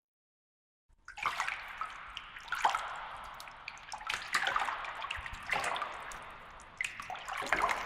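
Water splashing and sloshing in a series of separate splashes, about one every second or so, with small drips between them. It starts about a second in.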